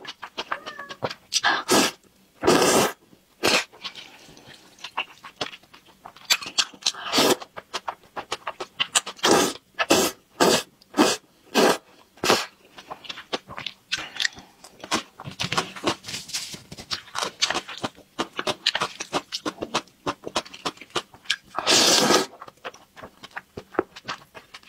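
Close-miked slurping of stir-fried noodles and wet chewing: a long series of short, irregular slurps, some drawn out, with quieter chewing between.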